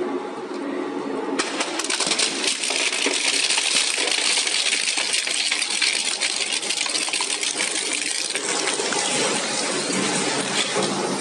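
Industrial shredder grinding material: a dense crackling, clattering rattle that gets suddenly louder about one and a half seconds in.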